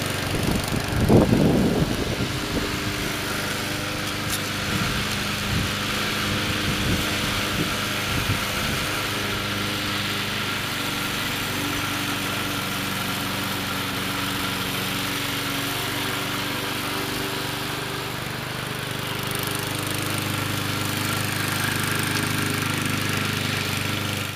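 Small gas engine of an MTD 20-inch walk-behind mower running steadily while the remote-controlled mower drives over the grass. A brief louder burst about a second in, and a few faint knocks a few seconds later.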